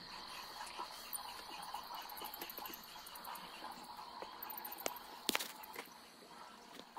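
Phone handling noise: small clicks and taps, with a sharper double click about five seconds in, over a faint steady high whine.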